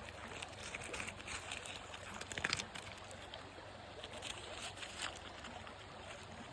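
Water sloshing and splashing, with irregular small splashes and clicks and a louder cluster about two and a half seconds in.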